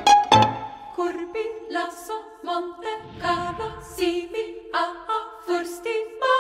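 Music: a few plucked string notes, then a cappella voices singing a rhythmic, chant-like line of short notes stepping between two or three pitches.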